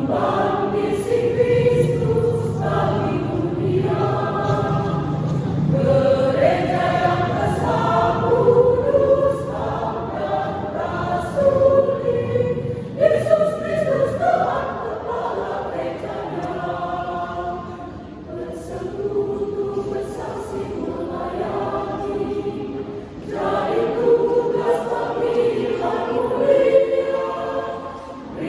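Choir singing in parts, many voices holding notes together in phrases that swell and ease, with a softer passage about two-thirds of the way through.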